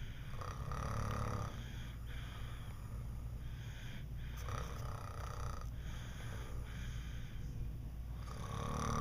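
Snoring of a sleeper in slow, regular breaths: three louder snores about four seconds apart, with quieter breaths between them.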